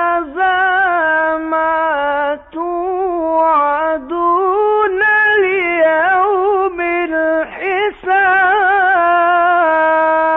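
A male Quran reciter's voice in the melodic mujawwad style, drawing out and ornamenting long notes with short breaks between phrases, and ending on a long steady held note.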